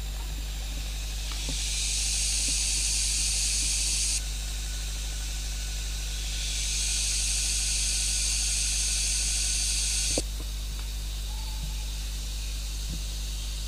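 Forest cicadas buzzing in two long, steady spells of about three to four seconds each, a short gap between them, over a constant low hum.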